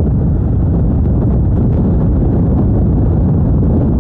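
Motorcycle riding at road speed: the engine running with wind buffeting the microphone, a steady loud low noise.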